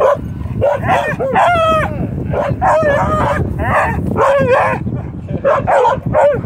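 A dog barking repeatedly, about eight times, some barks short and some drawn out for half a second, falling slightly in pitch at the end.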